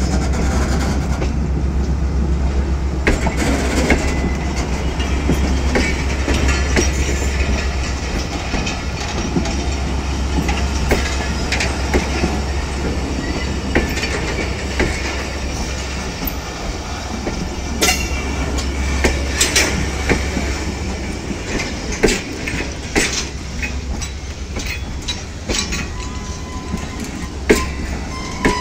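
Passenger train rolling past at a station: a steady low engine hum with irregular clicks and clanks of wheels over rail joints. The hum fades about halfway through and comes back near the end.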